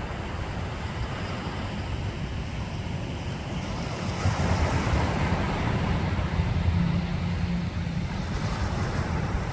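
Ocean surf washing onto a beach, a steady rushing hiss that swells about four seconds in as a wave comes in, with wind rumbling on the microphone.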